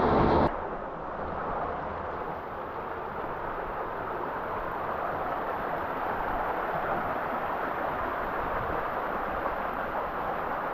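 Steady rush of creek water cascading through the canyon. It drops to a lower, even level about half a second in.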